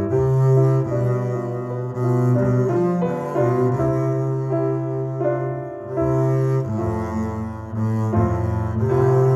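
Recorded music with sustained low notes, played back through Paradigm Persona 7F loudspeakers driven by an Accuphase E-4000 integrated amplifier.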